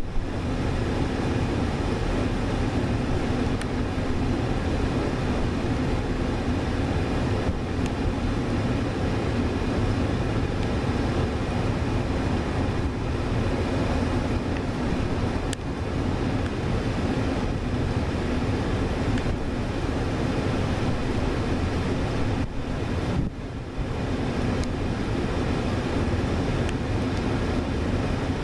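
CB&Q E5 diesel locomotive, with its twin EMD 567 engines, running as it approaches at the head of a passenger train: a steady, even rumble.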